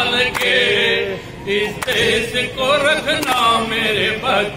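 A small group of men singing a Hindi patriotic song together, one voice amplified through a handheld microphone, with hand claps keeping time about every second and a half.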